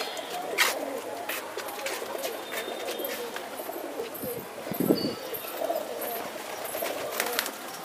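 A flock of domestic pigeons cooing together in a steady low murmur, with scattered wing flaps and a brief louder burst about five seconds in.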